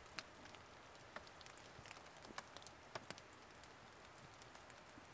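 Near silence: a faint steady hiss with scattered, irregular light ticks.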